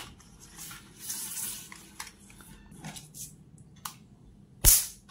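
Electric mosquito racket's high-voltage grid arcing to a screwdriver tip: one loud, sharp crack near the end. The spark shows the racket, repaired with a replacement capacitor, is generating high voltage again.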